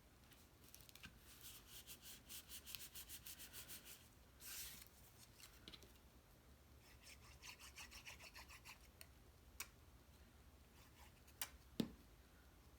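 Cardstock being creased by hand along its perforated fold lines: faint, quick back-and-forth rubbing strokes in two spells with a short scrape between them, then a few sharp taps of the card on the table near the end, the last the loudest.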